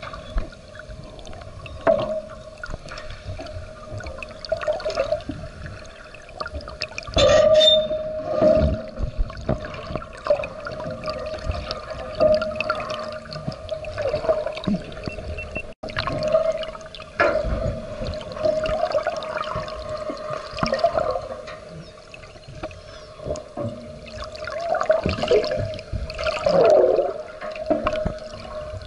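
Sea water heard through an underwater camera: muffled sloshing and gurgling bubbles over a steady hum, with louder surges about seven seconds in and again near the end.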